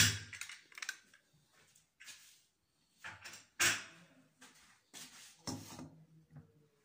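Kitchen handling noises: several short knocks and rustles of utensils and containers as marinade ingredients go into a stainless steel mixing bowl, the loudest at the very start and about three and a half seconds in.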